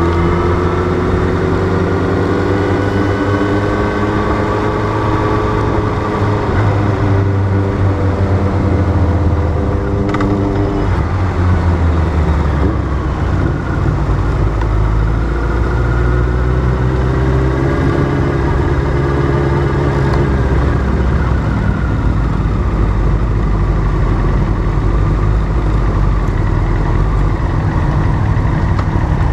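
Motorcycle engine heard from a camera mounted on the bike, running at low speed; its pitch drops about a third of the way in and later rises and falls again with small throttle changes as the bike rolls slowly.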